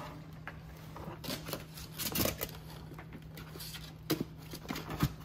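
F1 mini goldendoodle puppies scrambling over each other on a blanket in a plastic wading pool: scattered rustling, scratching and light knocks at irregular moments, with a few sharper knocks near the end, over a faint steady hum.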